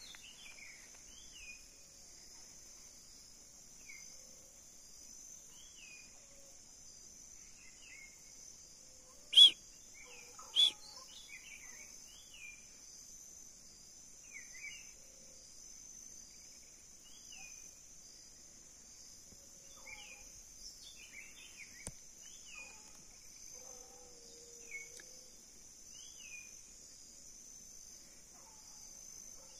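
A steady high-pitched insect drone with many short, repeated bird chirps throughout. Two loud, sharp sounds stand out about nine and ten seconds in.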